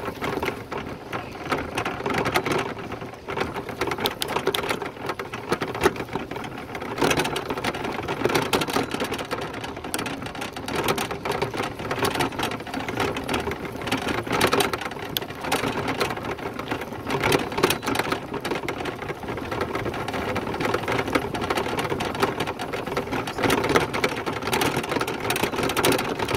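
Steady dense rattling and clatter of a bike being ridden, with many small knocks and no pauses.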